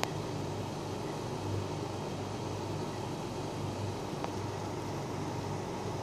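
Steady rain falling, an even hiss with a low steady hum underneath; a light click at the very start.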